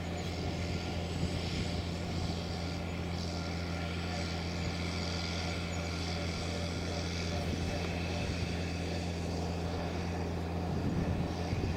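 Steady drone of a car on the move, heard from inside the cabin: a constant low engine hum with road and tyre noise.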